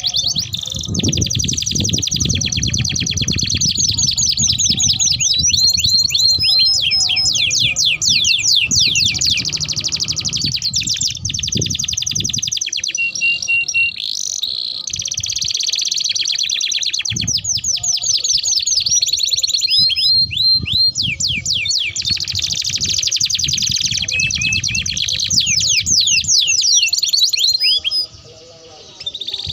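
Domestic canaries singing long rolling trills of fast repeated notes mixed with sweeping whistled notes, almost without pause, over a low background rumble. The song breaks off briefly near the end.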